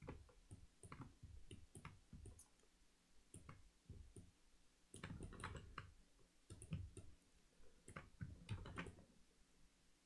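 Faint, irregular clicks of a computer mouse and keyboard, a few at a time with pauses between.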